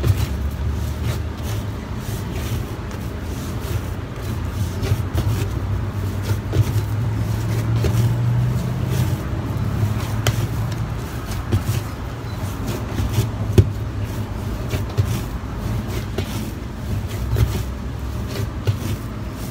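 Bread dough being kneaded by hand on a tabletop: irregular knocks and thumps of hands and dough against the table over a steady low rumble.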